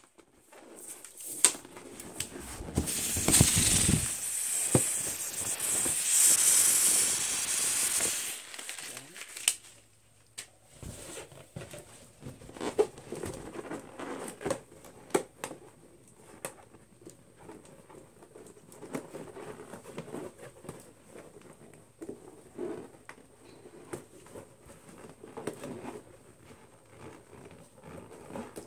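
Air hissing out of the neck of a latex balloon as it is let down instead of popped, for about six seconds starting a couple of seconds in. Afterwards, quieter rubbing and squeaking of latex balloons being handled, with a few light clicks.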